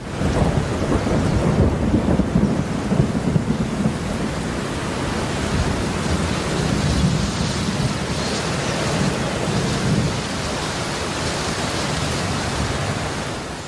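Steady heavy rain with a deep, continuous thunder rumble underneath, starting suddenly and cutting away near the end.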